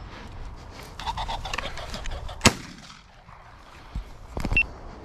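A single shotgun shot: one sharp, loud report about two and a half seconds in, with a short echo. A second of rapid, flurried noise comes just before it, and a few weaker knocks follow near the end.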